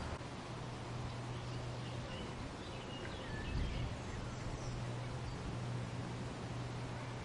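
Wind in a weeping willow, its leaves and hanging branches rustling steadily, with a brief gust about halfway through. A few faint bird chirps come in the middle, over a steady low hum.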